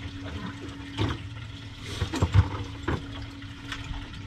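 Sea water sloshing against the hull of a drifting fishing boat, under a steady low hum, with a few sharp knocks and clicks, the loudest about two and a half seconds in.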